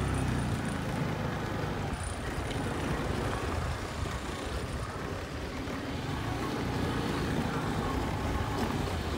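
Steady low rumble of outdoor vehicle noise, starting abruptly.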